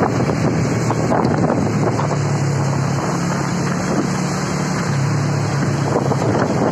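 Wind rushing over the microphone of a moving vehicle, over a steady low engine drone from the traffic on the road.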